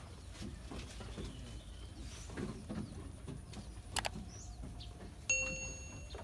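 Subscribe-button animation sound effect: a sharp mouse click about four seconds in, then just over a second later a bright bell ding that rings on to the end. Under it is faint background noise.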